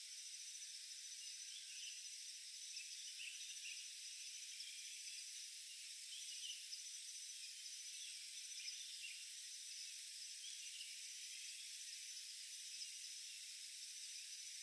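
Forest ambience: a steady, high-pitched insect drone with scattered short chirps.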